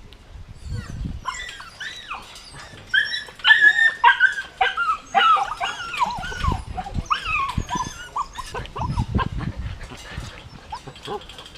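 Nine-week-old golden retriever puppies yipping and whining in many short, high-pitched calls as they play, busiest and loudest about three to five seconds in, with a few low thuds among them.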